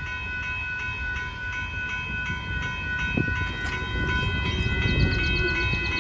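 Railroad crossing bell ringing in a fast, steady repeating pattern while the crossing gate arms rise, over a low rumble from the train moving off.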